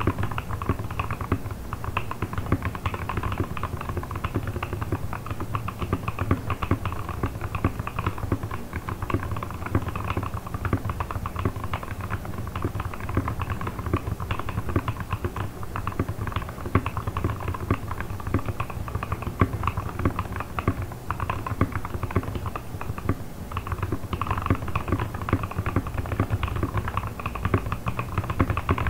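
Fast touch-typing at about 100 words a minute on a Keychron C1 mechanical keyboard with hand-lubed Gateron Red linear switches, foam and two-layer tape mods, and thick PBT XDA-profile keycaps. The result is a dense, continuous patter of keystrokes that stops abruptly at the end.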